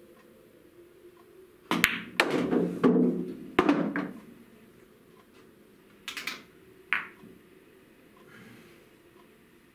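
A pool shot: the cue tip strikes the cue ball with a sharp click about two seconds in, followed by about two seconds of billiard balls knocking and rolling. A few lighter clicks come a few seconds later as balls are handled.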